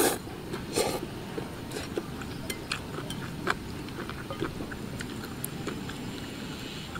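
A person slurping instant noodles, with a short noisy slurp about a second in, then chewing and scattered light clicks of chopsticks against a glazed ceramic bowl.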